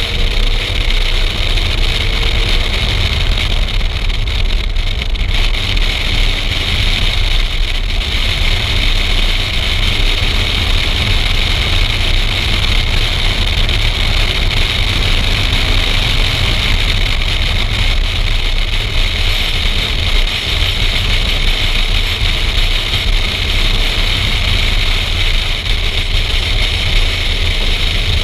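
Car driven at speed on a race track: its engine running and wind rushing over an outside-mounted camera, a steady, dense noise with a constant hiss and a low rumble.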